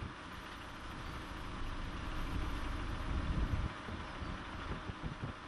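Wind buffeting the microphone: an uneven low rumble that swells and drops in gusts, over a steady hiss.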